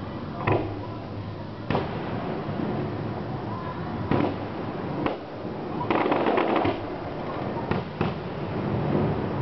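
Fireworks going off: single sharp bangs every second or so, and a quick run of crackling about six seconds in.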